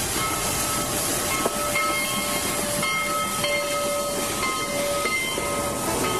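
Steady hiss of steam, as from a steam locomotive, with several held tones over it that start and stop at different times.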